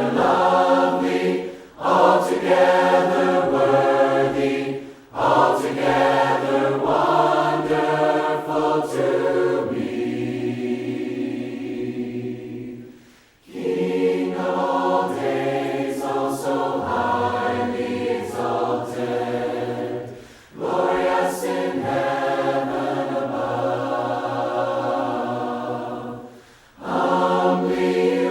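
A cappella hymn sung by a group of voices without instruments, in the Church of Christ style. The hymn goes in phrases of a few seconds, with short pauses for breath between them.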